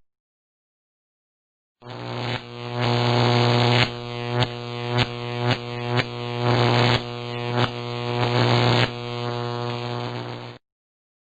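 Machine sound effect: a steady, low droning hum with hiss, crossed by sharp clicks about twice a second through the middle. It starts about two seconds in and cuts off suddenly near the end.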